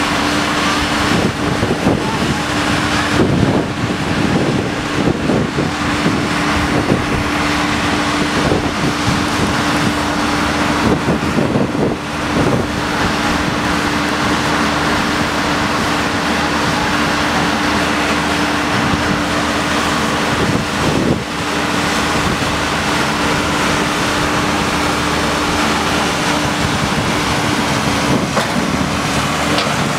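Case backhoe loader's diesel engine running at a steady speed, its hum holding one pitch until it stops near the end, under heavy wind buffeting on the microphone.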